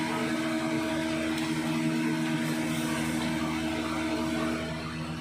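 A motor running with a steady hum, holding a few fixed tones, easing off slightly near the end.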